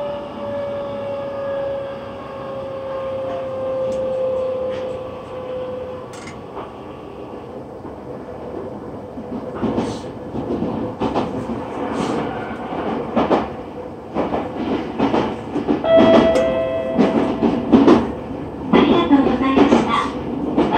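Inside an N3000 series subway car: the traction motor whine falls in pitch and fades as the train brakes. Knocks and clatter follow as it draws to a stop at the station, with a brief steady beep about three-quarters of the way through and busier rattling near the end.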